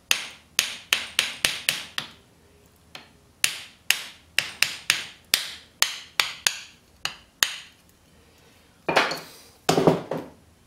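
Repeated sharp knocks of a block of wood being tamped down on a small radio transformer clamped in a bench vise, driving the transformer out of its sleeve. The knocks come in two runs of roughly three to four a second with a short pause between, then two longer, duller noises near the end as the piece comes loose.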